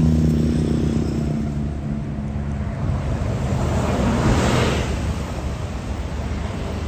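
A tour bus engine running, its low note fading over the first three seconds as it moves off. A rush of noise then swells and dies away about four to five seconds in.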